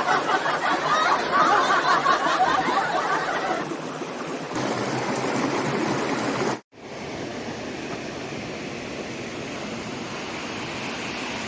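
Stream water running, a dense rushing for the first few seconds that eases off, then breaks off abruptly about two-thirds of the way through and gives way to a softer, steady rushing.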